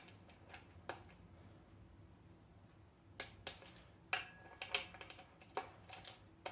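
Torque wrench tightening the wheel cylinder bolts to 23 Nm: a scattering of faint, sharp metallic clicks and clinks, a few with a brief ring.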